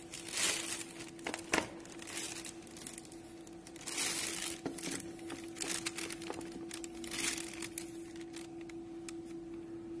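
Irregular crinkling and rustling as hands handle transformer bobbins with loose copper wire leads, in several short bursts over a steady hum.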